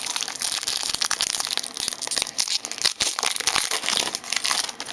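Foil Yu-Gi-Oh booster pack wrapper crinkling continuously as it is handled and opened by hand.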